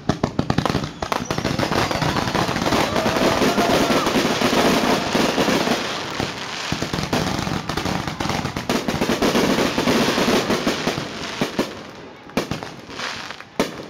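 Aerial fireworks going off: a quick string of sharp bangs, then a dense, continuous run of pops and crackle from the shell bursts for most of the time, and a few more separate sharp bangs near the end.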